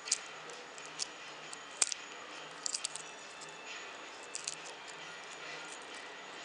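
Eggshell being cracked and peeled by hand off a set red gelatin (jelly) egg: scattered small, crisp clicks and crackles, with quick clusters about three seconds in and again around four and a half seconds.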